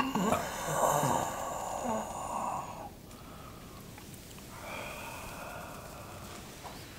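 A man's loud, breathy vocal exclamation of exaggerated delight lasting about three seconds, then a quieter breathy sound a little after halfway.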